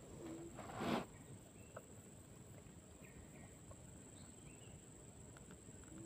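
Faint outdoor ambience: a steady high-pitched whine with a few soft, short chirps, and one brief rustle about a second in.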